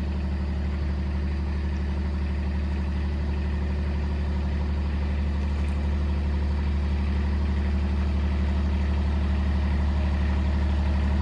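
Kubota MX5100 tractor's diesel engine idling steadily, a low even hum that grows slightly louder toward the end.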